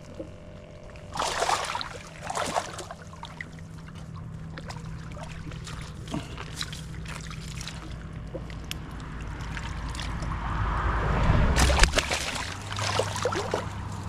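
Water splashing and sloshing in short bursts, about a second in and again near the end, over a steady low hum.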